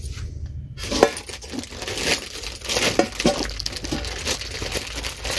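Plastic packaging rustling and crinkling, with light clinks and knocks of a glass lid as a kitchen container is handled and opened. One sharper knock comes about a second in.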